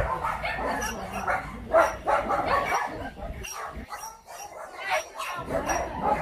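Many dogs barking and yipping at once, calls overlapping, with a brief lull about halfway through.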